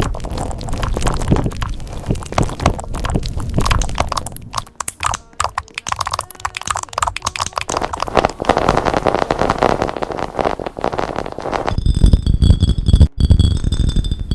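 Computer keyboard typed on rapidly and continuously, a dense run of key clacks. Near the end, high steady tones of background music come in under the typing.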